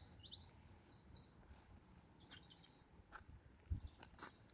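Small birds singing and chirping faintly, with a run of high notes in the first second or so and a few short chirps after. A soft thump comes a little before the end.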